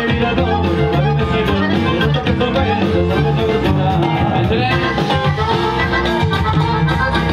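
Latin dance music played live by a band with guitar, loud over the sound system.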